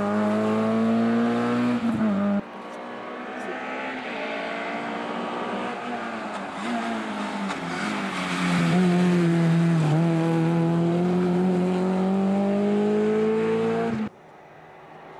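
Rally car engine at full throttle on a special stage, its note rising, breaking off abruptly about two seconds in. Another rally car then approaches, getting louder and accelerating hard with its engine note climbing, until it too breaks off suddenly near the end.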